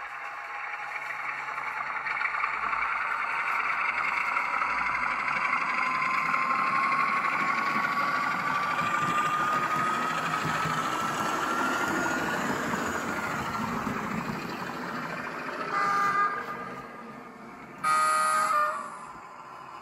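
Sound decoder in an H0-scale model of the ČSD T477 diesel locomotive playing diesel engine sound through the model's small speaker, with a thin whine rising slowly in pitch. Near the end the horn gives a short toot and then a longer, louder blast.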